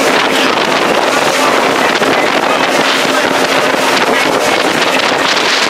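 Motorboat under way on open water: a steady rush of wind buffeting the microphone and water noise, with the boat's engine running underneath.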